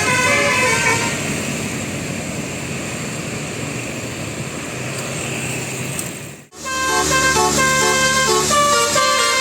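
Bus 'telolet' musical air horn playing a tune of short stepped notes, breaking off about a second in, then engine and traffic noise. After an abrupt cut, another telolet horn tune starts up over a low engine drone.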